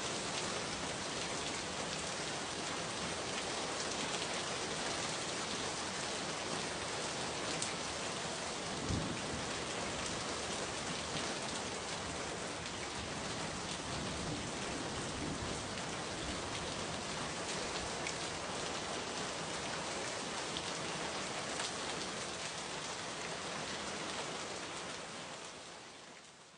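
Steady rain falling on a surface, a dense even hiss with scattered sharper drop hits, fading out over the last couple of seconds.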